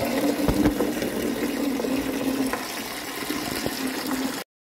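Water from a hose nozzle running into a partly filled plastic bucket, a steady splashing fill. It cuts off suddenly near the end.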